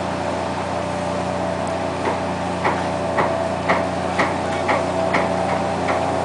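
A fishing boat's engine running with a steady hum, joined from about two seconds in by sharp, regular knocks about twice a second.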